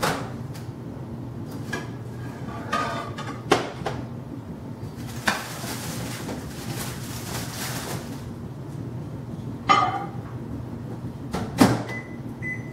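Kitchen handling sounds: a mug and dishes clattering and several knocks of doors being opened and shut while a microwave is loaded, with a few seconds of hiss in the middle. Short electronic beeps near the end as the microwave is set.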